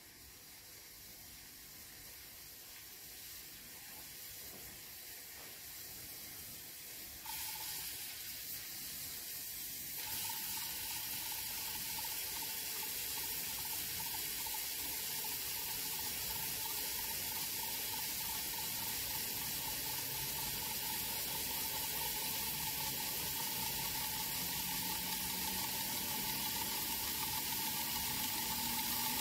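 Whizzer toy steam turbine running as steam builds: the jet from the boiler's tube hisses louder and louder, with jumps in loudness about seven and ten seconds in. A steady whistling tone joins about ten seconds in while the bladed wheel spins.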